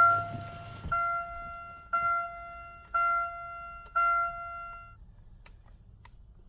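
2009 Chevy Cobalt's dashboard warning chime sounding five times, about one chime a second, as the ignition key is turned to on. A few faint clicks follow near the end.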